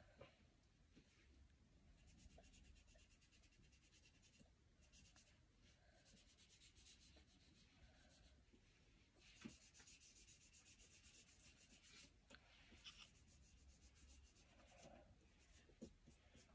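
Near silence, with faint soft rubbing and rustling in patches as fingertips dab skin cream onto the face and handle a plastic cream bottle, and a few faint clicks.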